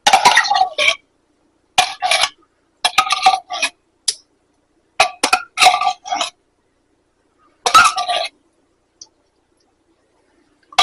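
A cooking utensil scraping and clinking against a frying pan in short irregular strokes, about six of them, with a slight metallic ring: stirring a creamy soup-and-broth mixture.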